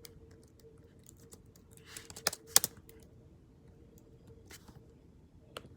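Scattered light taps and clicks like typing, with a few sharper clicks about two and a half seconds in, over a faint steady hum.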